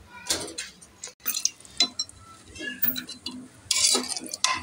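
Perforated steel skimmer ladle stirring and scraping thick beef gravy in an aluminium pressure-cooker pot, in irregular scrapes and clinks against the metal, with a longer scrape near the end. The meat is being fried down (bhuna) to cook off its liquid.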